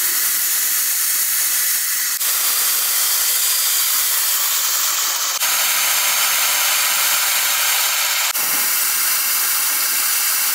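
Steady rushing water from a river running over rocks, a loud even hiss with no pitched sound, broken by abrupt cuts between takes about two, five and a half and eight and a half seconds in.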